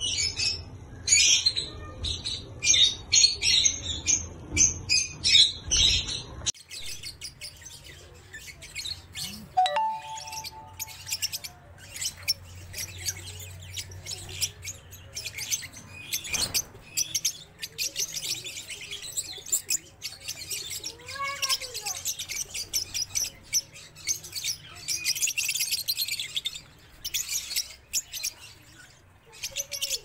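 Caged lovebirds chattering in rapid, high-pitched chirps, loud and busy for the first few seconds. After a sudden change about six seconds in, the chirping is softer, and it grows busier again in the second half.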